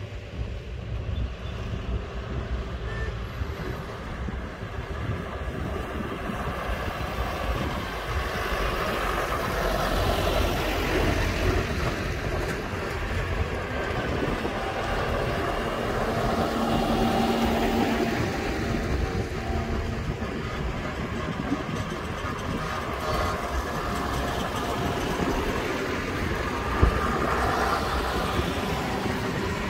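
Farm tractors' diesel engines running as a line of tractors drives past one after another. The engine noise swells twice as the nearer tractors go by.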